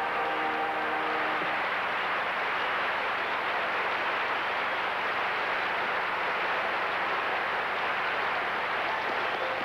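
Studio audience applauding steadily, with the last held notes of a song dying away in the first second or so.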